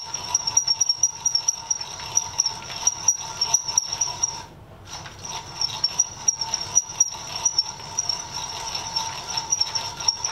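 Hand-cranked Miller Falls #120 breast drill, geared for high speed, boring a twist bit through 1/8-inch steel. It gives a steady high squeal that pulses with the cranking, over rapid clicking. It stops for about half a second some four and a half seconds in, then carries on.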